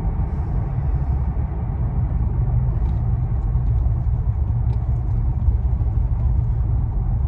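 Steady low rumble of a Ford Ranger pickup driving, heard from inside the cab: engine and road noise mixed. The engine runs smoothly, its misfire cured by a tune-up.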